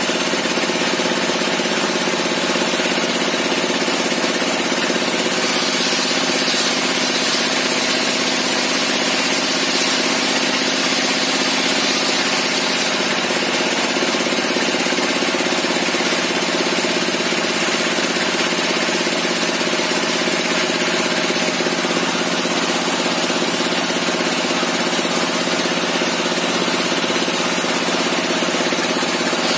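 A homemade circular table saw running steadily, its blade ripping wooden boards that are fed through it by hand.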